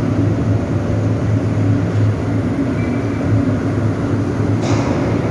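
Aluminium melting furnace running: a loud, steady low rumble of the burner and blower, with a brief hiss about four and a half seconds in.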